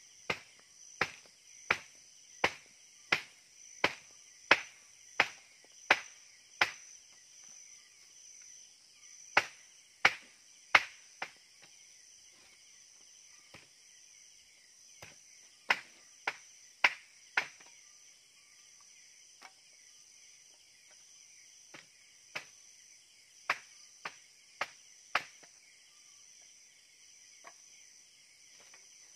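Sharp chopping knocks, about one every 0.7 seconds, in a run of about ten strokes and then in shorter runs of three to five with pauses between. Behind them, night insects and crickets keep up a steady high chorus with a chirp that pulses evenly.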